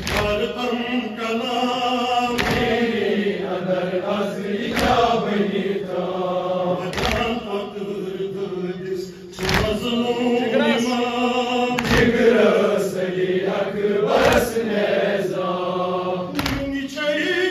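Crowd of men chanting a nauha, a Shia lament, in chorus. Sharp unison strikes of matam (chest-beating) land about every two and a half seconds.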